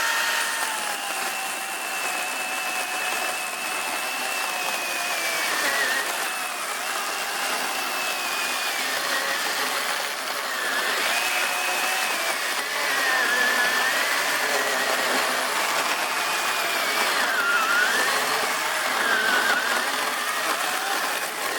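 Ryobi brushless 12-inch battery chainsaw cutting through a wooden 6x6 post. Its motor whine is steady, with the pitch sagging several times as the chain bogs in the cut, then picking back up.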